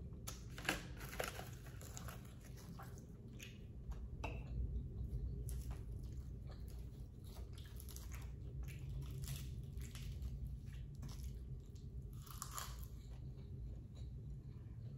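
Close-up eating sounds: chewing, with scattered crunches and clicks over a low steady hum.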